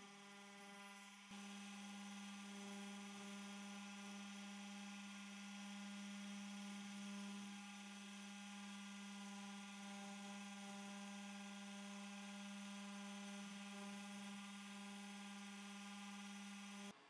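Makera Carvera Air desktop CNC spindle running at steady speed, a constant pitched hum with higher ringing overtones, as its engraving bit carves a resin workpiece turning on the rotary axis.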